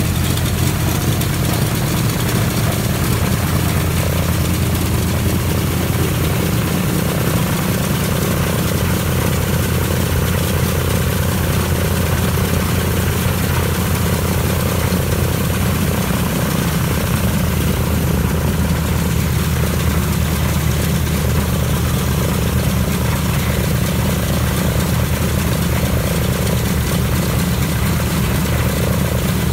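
Douglas C-47's Pratt & Whitney R-1830 Twin Wasp radial engine and propeller running steadily during a ground engine run, a deep, even rumble that holds level throughout.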